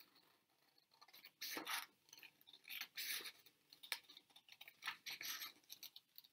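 Scissors cutting through a sheet of paper in a series of short snips with the rustle of the sheet being turned, beginning about a second in.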